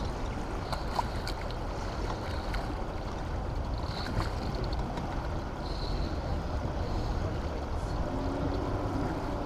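Steady rushing noise of wind and churning water below a dam's open spillway gates, with a faint low hum joining near the end.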